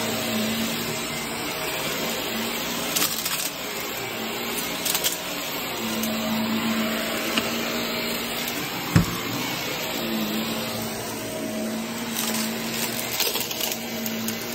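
Upright vacuum cleaner running on carpet with a steady hum. Brief clattering rattles come now and then, and there is one sharp knock about nine seconds in.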